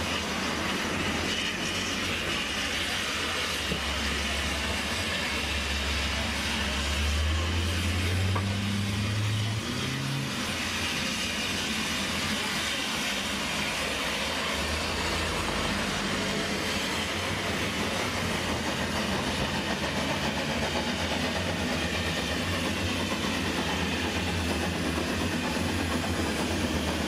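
Street traffic around a standing steam bus: a motor vehicle's engine hums and rises in pitch as it pulls away, over a steady hiss of outdoor noise.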